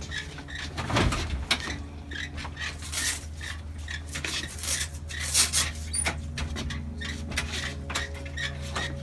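Metal clanking, rattling and squeaking as a lawn mower is handled out of a van, many sharp knocks over a steady low engine hum.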